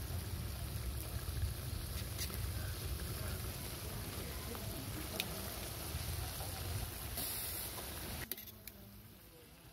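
Catfish pieces frying in oil in an iron kadai, a steady sizzle over a low rumble, with a couple of sharp clicks of metal tongs against the pan as the fish is turned. The sound drops away suddenly about eight seconds in.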